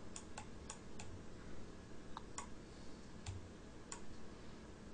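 Computer mouse clicking: a series of faint, irregular single clicks as spline points are placed one by one.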